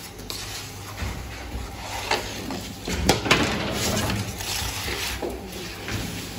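Irregular clatter and knocks of work in a lahmacun bakery, loudest about three seconds in, over a steady low hum.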